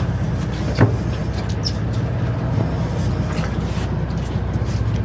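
Sportfishing boat's engine running steadily at low speed, with a single short knock about a second in.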